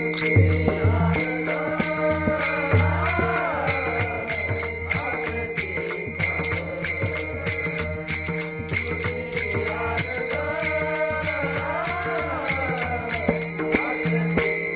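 Marathi Varkari bhajan: a voice sings the abhang in long, bending phrases over a steady, even beat of small hand cymbals (taal) and a low drum.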